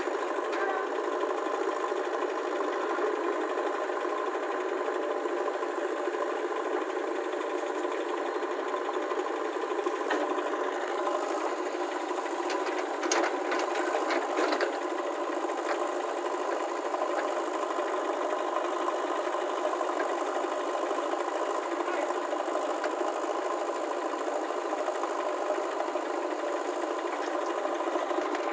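Tractor diesel engine running at a steady speed, with a few brief rattles about halfway through.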